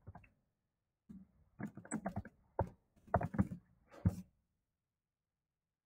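Typing on a computer keyboard: an irregular run of key clicks from about one second in, stopping about four seconds in.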